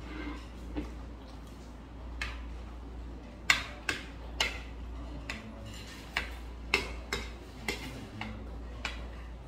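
Metal utensils clicking against a ceramic bowl: about a dozen irregular sharp taps, the loudest about three and a half seconds in.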